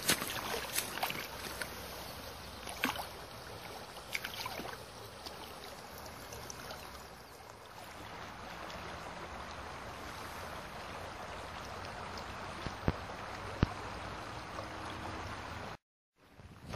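Shallow river running over stones: a steady rush of water, with a few sharp clicks standing out from it. The sound cuts out suddenly for a moment near the end.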